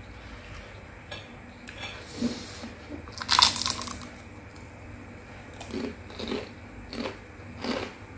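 A crisp fried wonton crunching loudly as it is bitten about three seconds in. Softer crunches of chewing follow.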